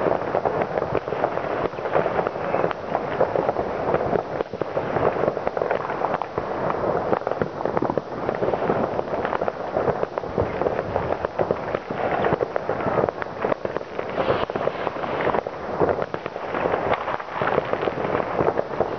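Many fireworks and firecrackers going off at once across a town, a dense, continuous crackle of overlapping bangs and pops with no pause.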